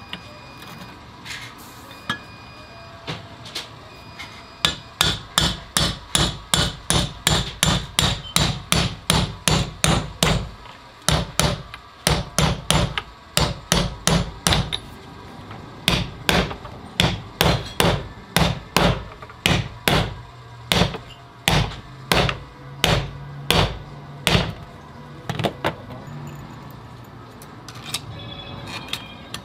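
Hammer tapping on alternator parts during reassembly: quick, evenly spaced blows, about two to three a second, in long runs broken by short pauses, starting about five seconds in and tailing off near the end.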